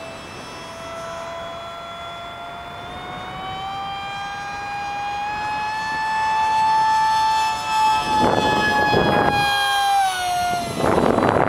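Fighter jet flying past: a high engine whine that slowly climbs in pitch, then drops quickly about ten seconds in as the jet passes, with a rushing roar swelling near the end.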